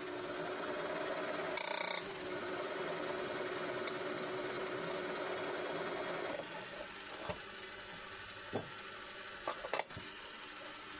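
Electric drill boring a hole in steel plate, running steadily for about six seconds and then stopping. A few light clinks and taps follow.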